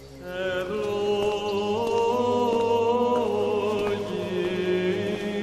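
Chanting in long held notes that step from pitch to pitch over a steady low drone, in the manner of Orthodox monastic chant.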